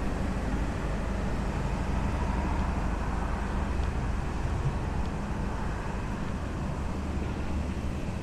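Steady low rumble of vehicle traffic in a city street.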